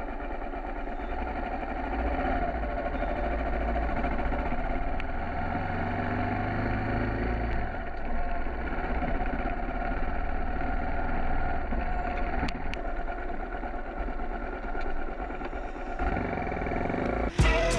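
Motorcycle engine running as the bike rides along, its note rising for a few seconds and then dropping back about eight seconds in.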